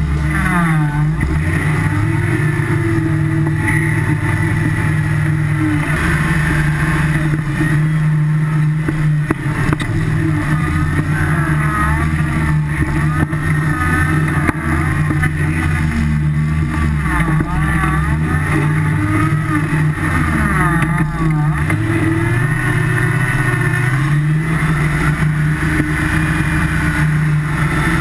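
Engine of a tube-frame off-road buggy revving up and down again and again while crawling over rough, muddy terrain, picked up close by a camera mounted on the buggy.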